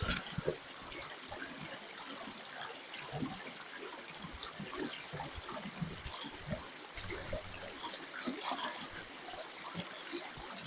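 Stream water trickling steadily, with a sharp knock right at the start and scattered small clicks.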